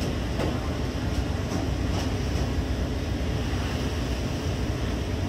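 Steady low rumble of a towing fishing vessel's engine, mixed with the rush of wind and rough seas.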